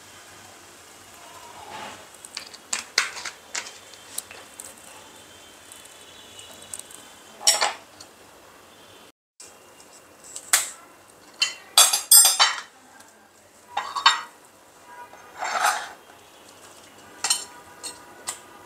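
Irregular clinks and clacks of ice cubes being pushed out of a silicone ice cube tray and dropping onto a ceramic plate, with most of the knocks coming in the second half.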